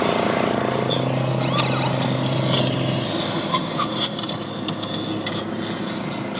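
Engines running steadily while mowing: the small lawn mower engine mounted on the front of the car and the car's own engine, heard from inside the car. A steady hum drops out about three seconds in, and a few sharp clicks follow.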